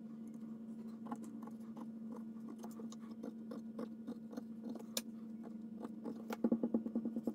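Pencil marking a wooden board against a plastic ruler: faint scratches and small clicks as the lines are drawn and the ruler is shifted, with a quick run of light ticks near the end, over a steady low hum.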